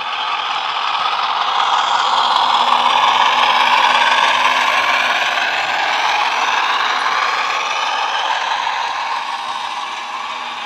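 Model Class 33 diesel locomotive's DCC sound decoder playing a diesel engine sound through its small on-board speaker, over the rattle of the model wagons' wheels on the track. The sound swells as the train comes past and then slowly fades as the wagons roll by.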